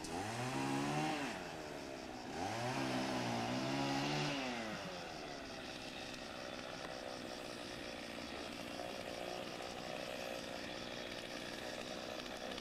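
Chainsaw revved up twice, each time held at high speed for a second or two and then let back down, after which the engine runs on in a steady drone.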